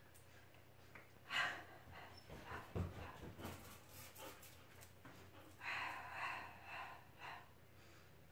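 A woman breathing out forcefully during a Pilates hold, once briefly and once longer near the second half. In the middle, a dog's claws click rapidly on the tiled floor as it runs past.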